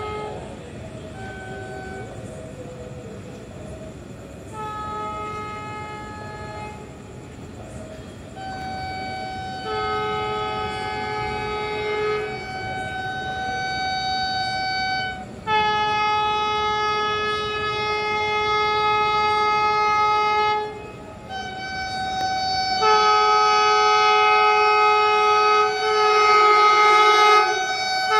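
An approaching train's locomotive air horn sounds over and over, in short and long blasts of several notes at once, some held for several seconds, getting louder as the train nears, over a steady low rumble.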